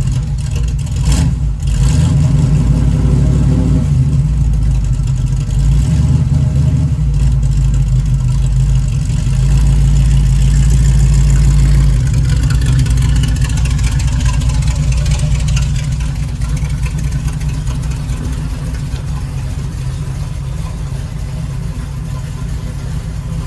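Small-block Chevy 350 V8 in a 1936 Chevrolet coupe running just after starting, its revs rising and louder from about nine to twelve seconds in, then easing back.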